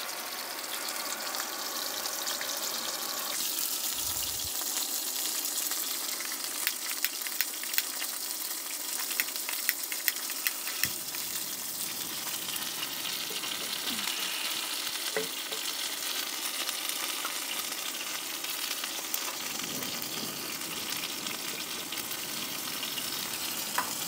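Breaded cod fillets frying in about a quarter inch of hot olive oil in a cast iron skillet: a steady sizzle with many small crackles throughout.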